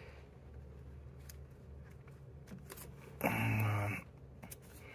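Faint clicks and scraping of a rubber coolant hose being twisted and worked on its fitting by hand, with one louder sound lasting under a second about three seconds in.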